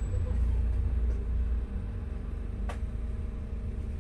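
Car engine idling with a steady low rumble, heard from inside the cabin, with one sharp click about two-thirds of the way through.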